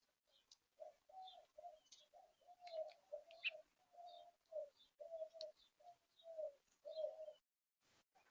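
A dove cooing: a run of short, low, soft coo notes, one after another for about six seconds, with faint chirps of small birds above.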